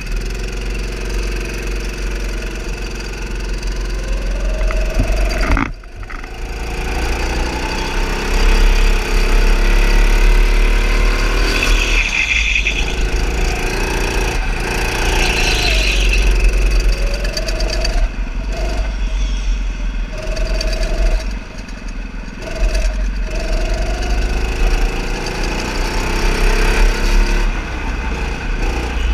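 Go-kart driven around a track, its motor note rising and falling in pitch as it speeds up and slows for the corners, over a heavy low rumble. The sound dips sharply twice, about six seconds in and again past twenty seconds.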